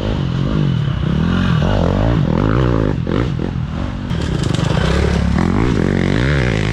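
Enduro dirt bike engine revving up and down in quick rises and falls of pitch as the bike passes close by.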